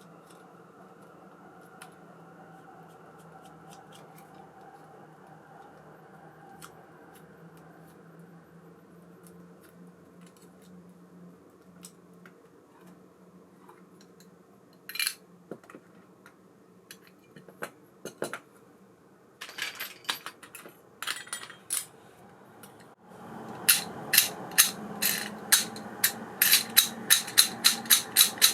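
ABU Ambassadeur 5500C baitcasting reel being handled: light metallic clicks and taps. Near the end comes a steady whir with rapid sharp ticking, about four ticks a second, as the reel's mechanism is turned.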